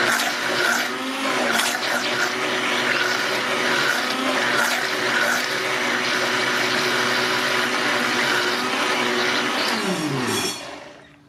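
Electric blender running steadily while blending fruit puree, then switched off about ten seconds in, its motor whine falling in pitch as it winds down.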